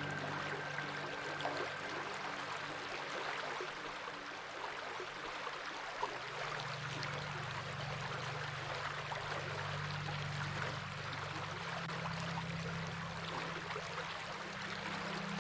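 Stream water running steadily. Underneath it a low sustained drone changes pitch a few times.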